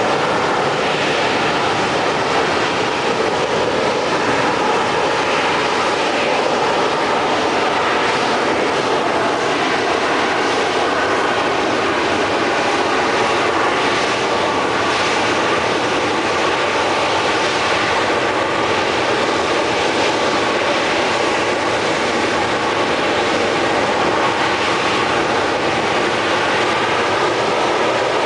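AV-8B Harrier jump jet hovering on its Rolls-Royce Pegasus vectored-thrust turbofan: a loud, steady jet roar with several steady whining tones running through it.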